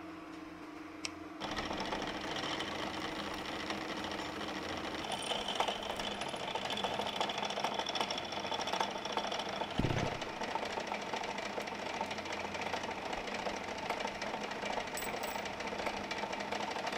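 Drill press running with its bit cutting into a metal washer held in a clamp jig. A steady motor hum gives way about a second and a half in to a dense grinding chatter of cutting. There is a high squeal for a few seconds in the middle and a single low thud about ten seconds in.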